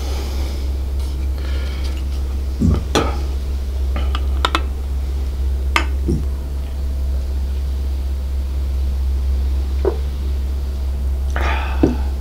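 Beer being poured from an aluminium can into a glass beer mug, with faint fizzing and several short clinks and knocks of the can and glass being handled and set on the table. A steady low electrical hum sits underneath.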